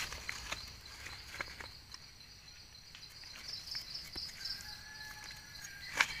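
Insects keep up a steady high trill in the forest. Over it come scattered soft scrapes and clicks of a knife and gloved hand digging in dry soil, the sharpest click a little before the end. A faint high whistled note is held for about a second and a half near the end.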